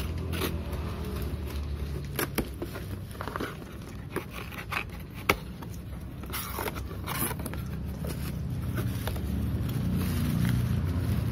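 Cardboard box being cut open with a utility knife and torn apart by hand: a run of short clicks, scrapes and tearing scratches, then rustling near the end as the wrapped speaker is lifted out. A steady low rumble sits underneath.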